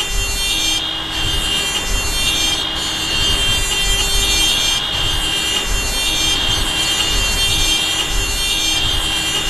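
Jammed city road traffic: car horns sounding steadily and overlapping over the low rumble of engines.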